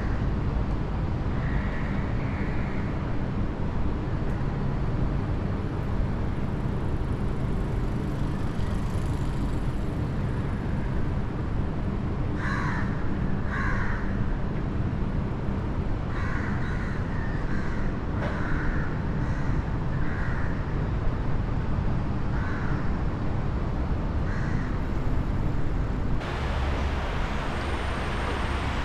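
A crow cawing repeatedly over the steady hum of city traffic, the calls coming mostly in the second half. Near the end the background noise grows louder.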